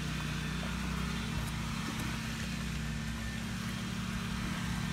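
A motor running with a steady low hum, with a faint even hiss above it.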